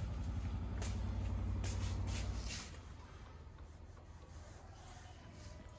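Small motorbike engine of a homemade three-wheeler running with a rapid low pulsing, dropping sharply in level about two and a half seconds in and carrying on more quietly.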